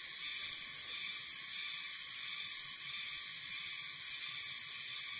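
Steady high-pitched insect chorus, an unbroken shrill hiss that holds the same level throughout.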